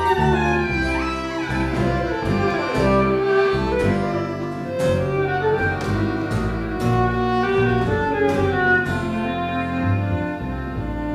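Live Gypsy-style acoustic ensemble of two violins, double bass, acoustic guitar and accordion playing a fast, fiery tune, with the violins leading and sliding between notes over the bass and guitar.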